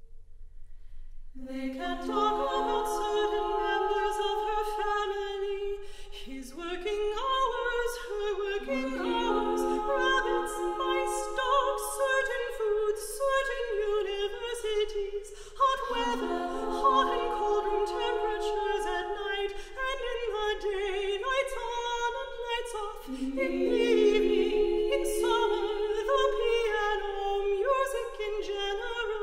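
Women's vocal ensemble singing unaccompanied in slow, held chords, entering about a second and a half in and moving in long overlapping phrases.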